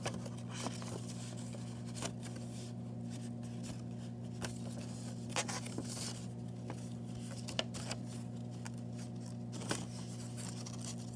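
Laser-perforated paper being folded and creased by hand along its perforated lines: a few scattered sharp crinkles and snaps of the paper over a steady low hum.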